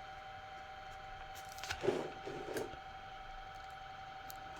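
Quiet room tone with a steady faint high-pitched electrical hum, and a brief soft rustle-like noise about two seconds in.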